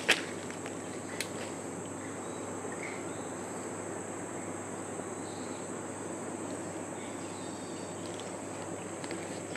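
Steady high-pitched insect drone of forest, with two sharp snaps, one at the very start and another about a second in.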